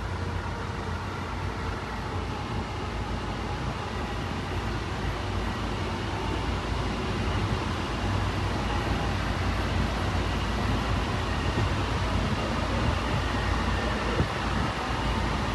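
Honolulu Skyline rapid-transit train heard from inside the car while it runs: a steady low rumble of wheels on rail with a faint motor whine, growing a little louder through the middle.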